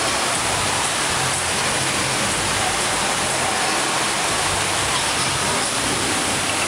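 Steady, even rushing of water in an indoor waterpark's pool area, a loud hiss like falling water with no breaks.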